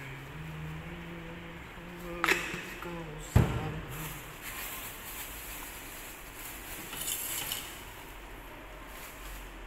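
Two sharp knocks about a second apart as kitchen items are set down and handled on a stainless steel counter, over a faint voice. A short rustle follows near the end.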